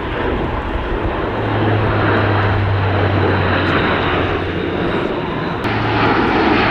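Airbus A400M Atlas's four TP400 turboprop engines and propellers droning steadily as it flies overhead, with a strong low propeller hum under a broad rushing noise. The sound changes abruptly about five and a half seconds in.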